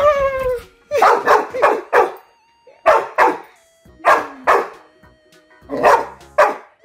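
Yellow Labrador Retriever puppy play-barking: about a dozen short barks in quick pairs and threes, the first one drawn out and falling in pitch.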